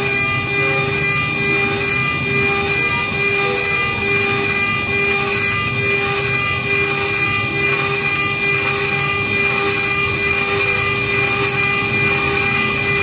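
Micro CNC mill's spindle and end mill cutting aluminium: a steady high whine of several tones over the even noise of the cut.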